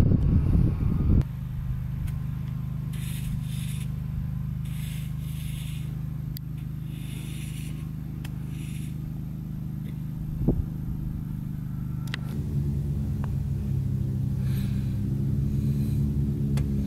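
An engine idling steadily with a low hum that thickens a little after twelve seconds. A single sharp click of a club striking a golf ball comes about ten seconds in.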